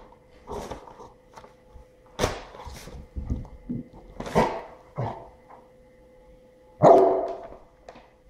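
Golden retriever barking in several short, separate barks, the loudest one near the end.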